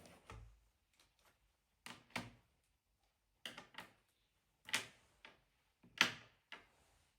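A series of light knocks and clicks, about half a dozen spread over several seconds, the loudest two near the end.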